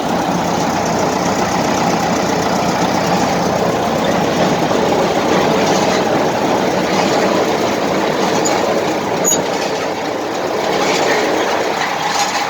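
A newly built drilling rig running on test: a loud, steady din of heavy engine and machinery.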